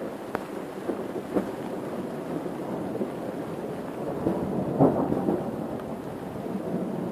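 Thunder rumbling and rolling, growing louder about four seconds in, over a steady hiss of rain.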